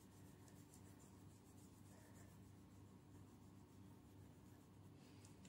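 Near silence over a steady low hum, with faint rubbing of fingertips on the skin of the back of a hand as an exfoliating liquid peel is worked in.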